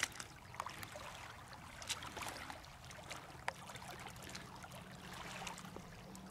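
Small waves lapping and trickling among shoreline rocks, with scattered light clicks and splashes, over a faint steady low hum.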